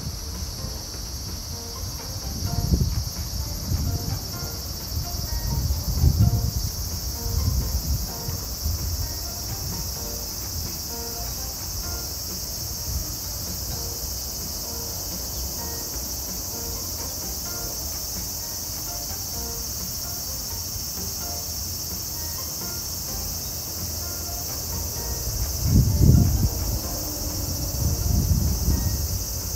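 Steady, high-pitched chorus of insects droning without a break. Low rumbles swell a few seconds in and again near the end.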